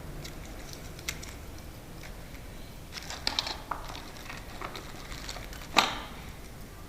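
Light clicks and taps of hand tools and small lock parts being handled during a mortice lock fitting, a quick cluster about three seconds in and one sharper knock near the end.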